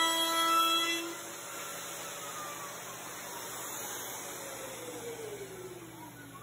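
Electric power tool motor whining at a steady pitch, switched off about a second in and then winding down, its pitch falling slowly for several seconds.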